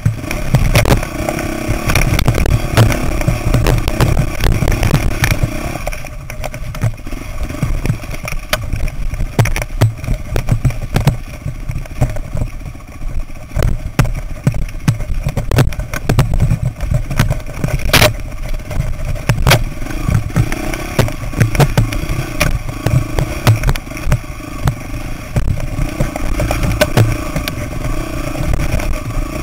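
Off-road dirt bike engine running as it rides a rough rocky single-track trail, heard from a camera mounted on the bike, with frequent knocks and rattles from the bike hitting rocks. The engine falls to a quieter, lower run from about six seconds in and picks up again toward the end.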